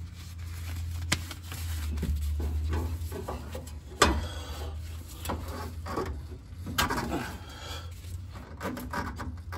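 A coil spring and shock absorber being worked into place by gloved hands under the car: scattered metal knocks and rubbing, with a sharp clack about four seconds in, over a steady low hum.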